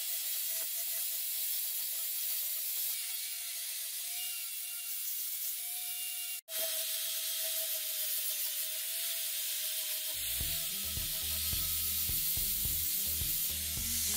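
Angle grinder with a flap disc running against a steel sword blade, grinding off rust: a steady hiss with a thin steady whine. It breaks off for an instant about six seconds in, and from about ten seconds a low pulsing sound joins underneath.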